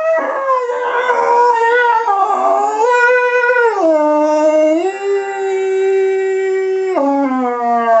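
A man making a loud, wavering, horn-like tone into a cardboard paper towel tube held to his mouth. The pitch slides downward in steps, holds one steady note for about two seconds in the middle, then drops lower near the end.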